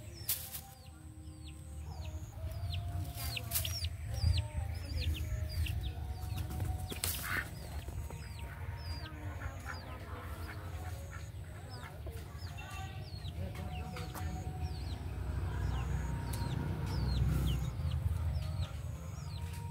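Domestic chickens clucking, with a steady run of short, high falling chirps and a low rumble underneath.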